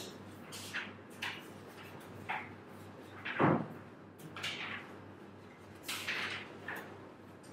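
A scatter of short knocks and rustles from papers and objects being handled on a classroom desk, the loudest a thump about three and a half seconds in, over a faint steady low hum.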